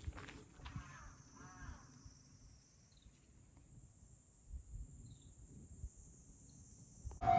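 Insects shrilling faintly at a steady high pitch, with a short pitched call about a second and a half in. The shrilling stops abruptly near the end as a much louder noise cuts in.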